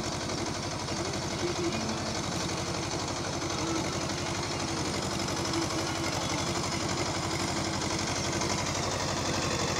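HMT 2522 tractor's diesel engine running steadily with an even, fast chugging beat as the tractor drives through a flooded field.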